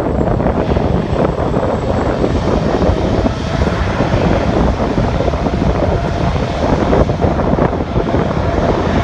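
Jet airliner engines running as the plane passes, heard through heavy wind buffeting on the microphone.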